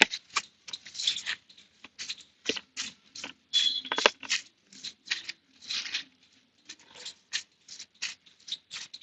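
A stiff brush wet with diesel scrubs a motorcycle drive chain in short, irregular scratchy strokes, about two or three a second, loosening the grime on the chain.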